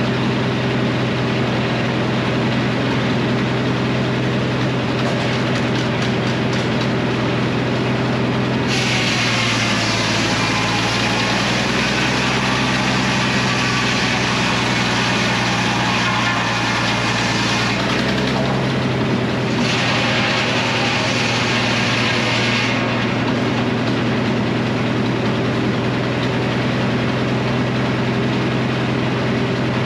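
Engine-driven Frick circular sawmill running steadily, its spinning blade cutting through a maple log. A long hissing cut starts about a third of the way in, and a shorter cut follows a couple of seconds after it ends.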